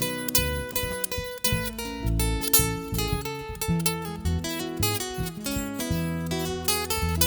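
Acoustic string band playing an instrumental break with no singing: strummed acoustic guitar over bass guitar notes, with picked melody notes on top.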